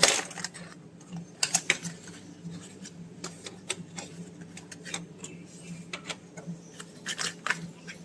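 Unboxing handling of a wireless microphone kit's box and accessories: irregular clicks, taps and short rustles, the sharpest right at the start, over a faint steady low hum.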